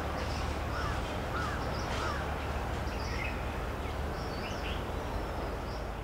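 Several birds calling: many short high chirps and a few lower, curving notes, over a steady low hum.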